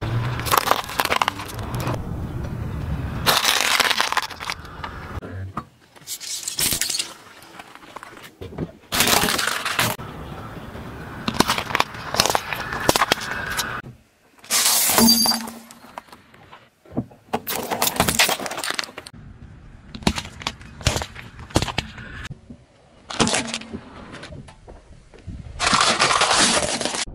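A car tyre rolling onto and crushing brittle things on asphalt, among them hard candy canes and a plate of small hard-shelled candies. The cracking and crunching comes in about eight separate bursts of a second or two each, cut off sharply, with quieter gaps between.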